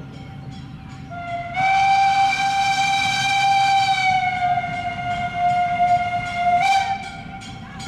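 Steam locomotive's whistle blown in one long blast of about five and a half seconds, its pitch sagging slightly and then jumping up just before it cuts off. A faint regular beat runs underneath.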